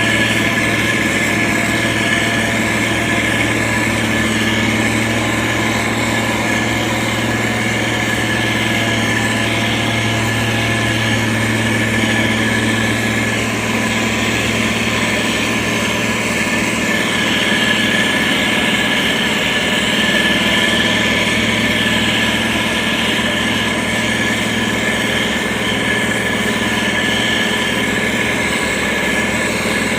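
Engine of a heavy road-construction machine running steadily.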